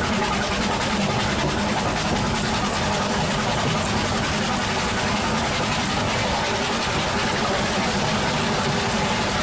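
Narrow-gauge train under way on the Ffestiniog Railway: a steady running noise from the locomotives and the wheels on the rails, heard from the carriage right behind the steam engine's coal bunker.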